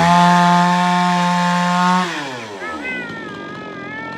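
Chainsaw engine running steadily at high revs, then the throttle is released about two seconds in and the engine note falls as it drops back. A high wavering tone follows near the end.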